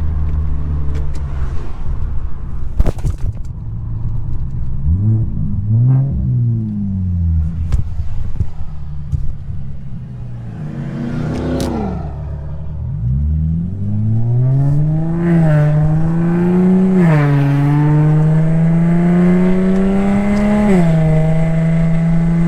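Infiniti G37's V6 engine under way, with aftermarket exhaust. The revs rise and fall a couple of times, then the car accelerates hard through several gears, the engine pitch climbing and dropping suddenly at each shift. A couple of sharp knocks come in the first few seconds.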